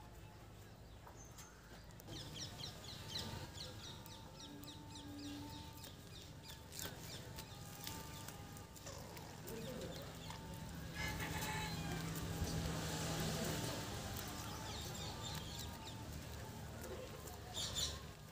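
Wet chicken feathers being plucked by hand, a soft rustling and tearing that is loudest about two-thirds of the way through. Chickens cluck faintly in the background.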